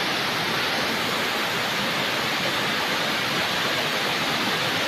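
Steady, even rush of flowing water, like a nearby waterfall or fast river.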